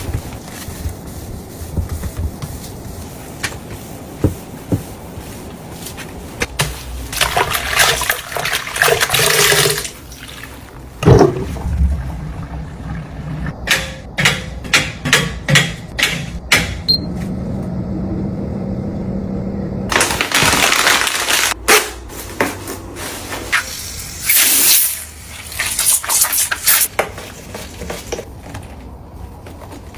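Household cleaning sounds: several bursts of rushing water, with a quick run of sharp clicks and knocks in the middle.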